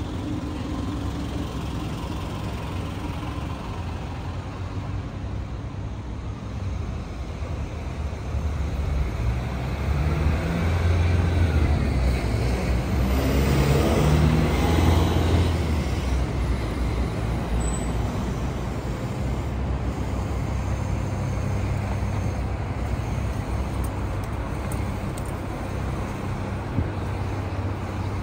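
Road traffic going by on a city street, a steady rumble of engines and tyres. One vehicle passes close, its sound swelling to the loudest point about halfway through and then fading away.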